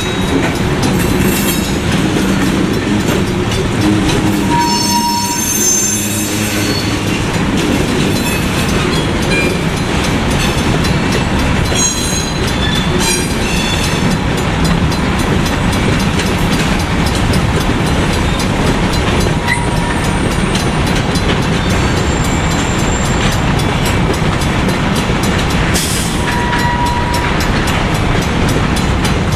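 Freight train of loaded covered hopper cars rolling through a grade crossing: a steady rumble of steel wheels and clatter over the rails, with a few brief high-pitched wheel squeals as the train curves off the CSX line.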